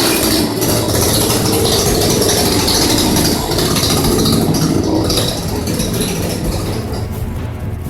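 Chainsaw engine running steadily, easing off a little near the end.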